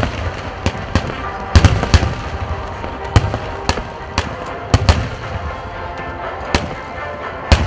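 Chiwari (ground-splitting) fireworks: half-dome shells bursting at ground level, heard as a rapid, irregular run of sharp bangs, some of them in quick clusters.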